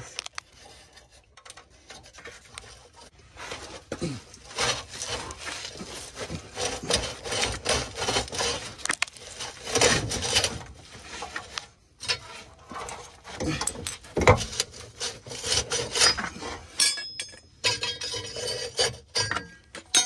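Irregular scraping and rubbing strokes on a BMW E46 exhaust pipe's sleeve joint as old, hardened exhaust paste is scraped off, with a brief pause about halfway. A few light metallic clinks come near the end.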